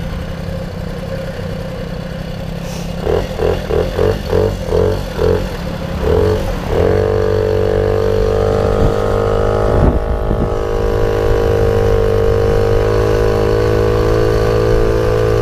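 Puch Maxi Luxe moped's 50cc two-stroke engine through a Puch Radical sidebleed expansion pipe, pulling away: the exhaust comes in quick, uneven pulses for a few seconds, then about seven seconds in settles into a steady note that holds. One sharp knock about ten seconds in.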